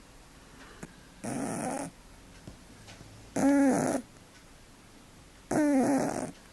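A sleeping cat snoring: three breaths about two seconds apart. The first is a breathy rasp. The next two are louder snores with a droning pitch that rises and then falls.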